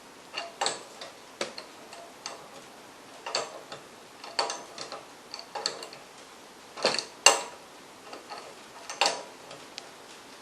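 Irregular metal clicks and clinks as a brass connector is threaded and tightened into an aluminium pump casting, about one or two a second, some with a short metallic ring, the loudest about seven seconds in.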